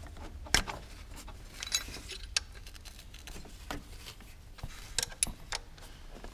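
Scattered metallic clicks and light knocks from a hand tool working on the timing-belt tensioner pulley of a 1.6 HDi (DV6) diesel engine as the tensioner is being loosened.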